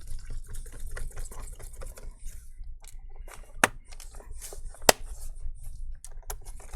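Small scattered clicks and taps of hands handling a laptop's plastic case and screws, with two sharper clicks a little over a second apart past the middle, over a steady low hum.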